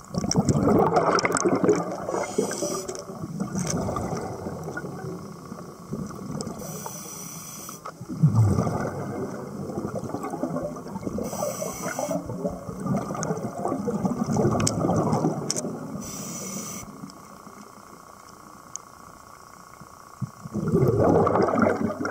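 Scuba diver breathing through a regulator underwater: long gurgling rushes of exhaled bubbles, with short hissing inhalations in between.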